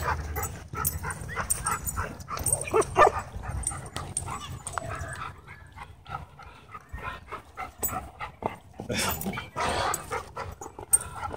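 Several dogs barking and yipping in short, scattered bursts as they jump for and tug at a rope toy. There is a louder, rougher burst about nine seconds in.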